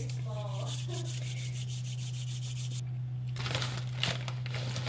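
A person's voice talking faintly in the background, over a steady low hum and a rough hiss that cuts off suddenly just under three seconds in.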